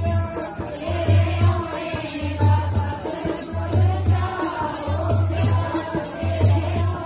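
Devotional hymn singing over music, with a heavy low drumbeat about every second and a quarter.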